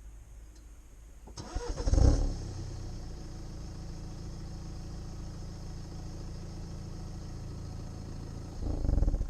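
BMW N47 2.0-litre four-cylinder diesel starting about a second and a half in, then idling steadily. Near the end it is switched off with a brief, loud growl as it shuts down.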